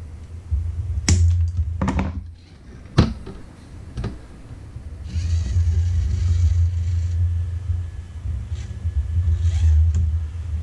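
Sharp clicks and knocks of a plastic part and screws being fitted against a metal toaster-oven case, four of them in the first four seconds, then a scraping rustle, over a low rumble.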